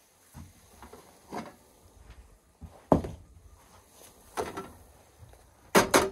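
Cookware knocking on a stovetop as a pot of boiling water and a frying pan are handled: separate clunks about every second and a half, the loudest a sharp double knock near the end.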